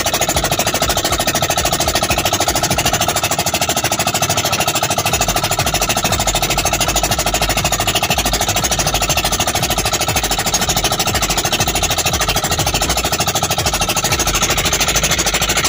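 Small engine of a motorized outrigger boat running steadily under way, a loud, rapid, even chugging.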